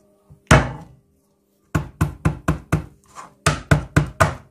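A hand-held stone pounding ginger slices on a wooden chopping board to crush them. One heavy knock comes first, then two quick runs of knocks, about four a second, with a short gap between them.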